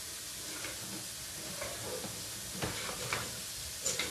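Steady hiss with a few sharp knocks in the second half as a sewer inspection camera and its push cable are pulled quickly back out of a clay drain pipe.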